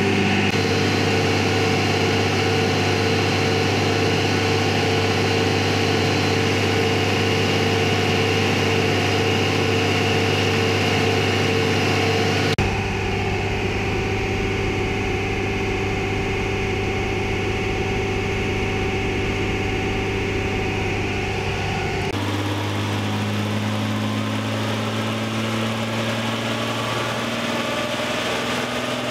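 1992 Chevy S-10 pickup's engine running steadily on a chassis dyno, held at about 60 mph to work in the additive, its drone changing abruptly twice.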